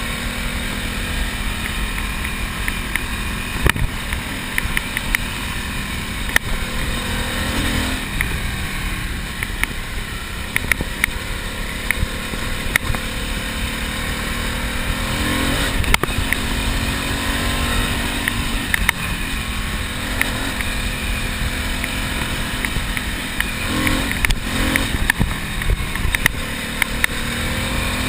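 Ducati Monster's air-cooled L-twin engine running under way, heard through heavy wind rumble on the microphone. The engine pitch climbs a few times as the rider accelerates, with a few sharp knocks along the way.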